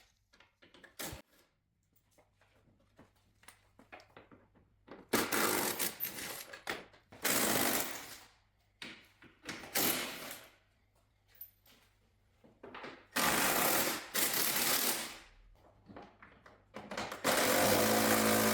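12V Milwaukee cordless impact gun rattling in about five short bursts of one to two seconds each, undoing bolts, with short pauses between bursts.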